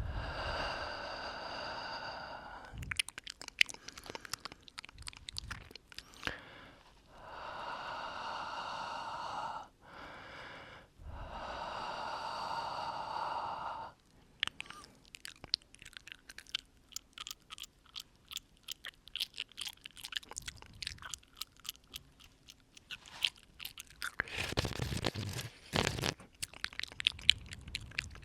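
Breath and mouth sounds close to the microphone: long, drawn-out exhales near the start and twice around the middle, with wet mouth clicks and smacks between them. The second half is mostly rapid, irregular mouth clicks, with another breath near the end.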